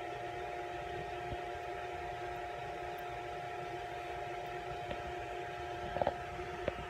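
Steady background hum and hiss with a constant faint tone, and a few light taps and rustles of the phone being handled near the end.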